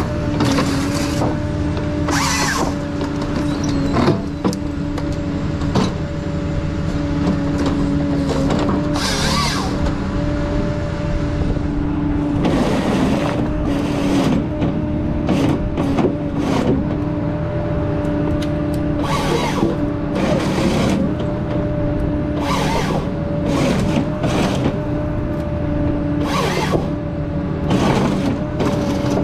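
Ponsse Scorpion King forest harvester at work: its engine and hydraulics run with a steady, constant drone, broken by many short noisy bursts from the machinery that come more often after the middle.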